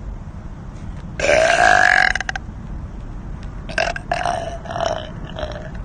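A woman's loud, drawn-out burp about a second in, lasting about a second, followed by a few shorter, quieter sounds near the end.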